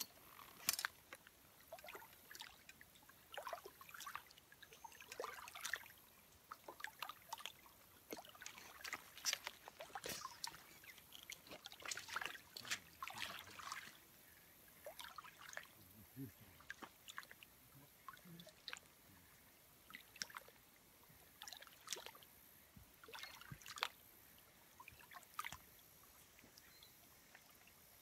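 Faint, irregular splashing and trickling of small waves lapping against shoreline rocks.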